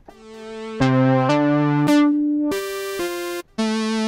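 Elektron Analog Keys four-voice analog synthesizer playing a string preset: held notes and chords, the first fading in softly, then changing every half second or so, with a brief break about three and a half seconds in.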